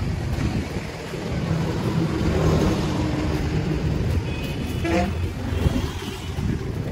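Wind buffeting the microphone outdoors: a steady low rumbling noise that rises and falls.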